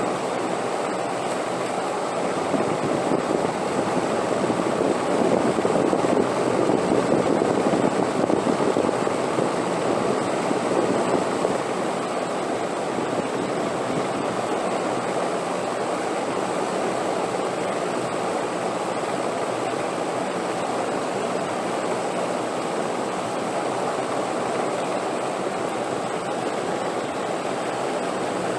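Steady rushing wind, swelling into a stronger gust between about three and eleven seconds in before settling back to an even blow.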